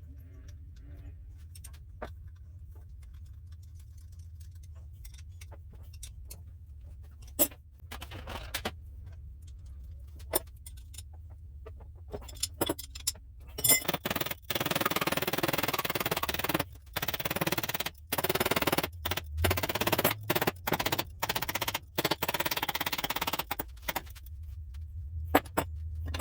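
Workshop sounds: a low hum with scattered clicks and knocks, then from about halfway through a loud hissing that comes in a run of bursts with short gaps, ending a couple of seconds before the end.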